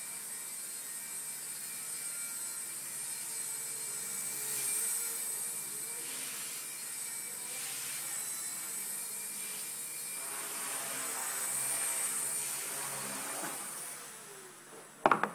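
Walkera Genius micro RC helicopter in flight, its small electric motors and rotors making a steady high whine whose pitch shifts up and down as it is flown. The whine fades away near the end.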